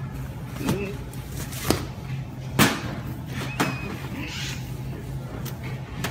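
Four sharp knocks and thumps, roughly a second apart, over a steady low hum.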